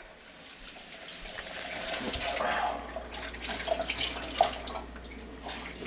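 Water running from a tap into a stainless steel kitchen sink, with a few short knocks and clinks of things handled in the sink.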